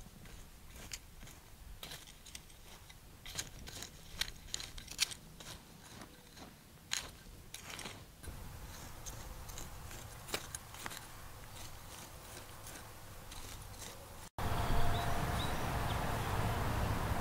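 Steel blade of a Kusakichi Kana Scraper hand hoe scraping and chopping through dry, crusted soil in quick, irregular strokes, thinning out after about eight seconds. About fourteen seconds in, it cuts abruptly to a louder steady noise with a faint hum.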